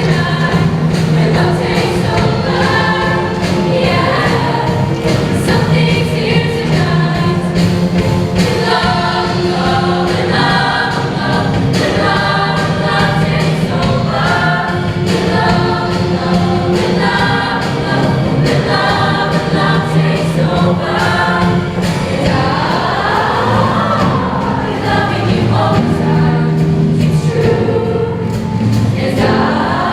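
Show choir singing in parts over loud instrumental backing with a steady beat, with two quick up-and-down pitch swoops near the end.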